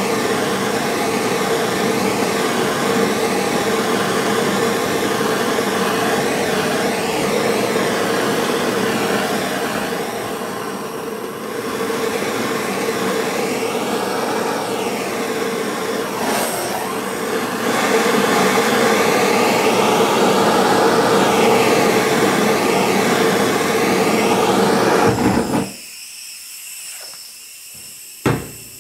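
Handheld gas torch burning with a steady rushing roar as its blue flame preheats an aluminum tube for TIG welding. The flame is shut off about three seconds before the end, and the roar stops abruptly, followed by a few sharp clicks.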